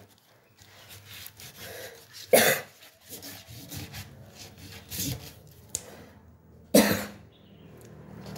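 Hand rubbing and scraping a whole giant gourami in a stainless steel sink. A few short, loud rasping strokes come through, the loudest about two and a half and seven seconds in, with fainter scraping between them.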